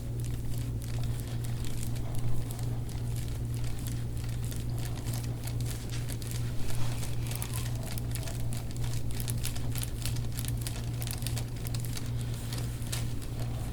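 Irregular soft crinkling and rustling from hands-on deep-tissue work on a patient's back, with two brief louder knocks about two and seven seconds in, over a steady low hum.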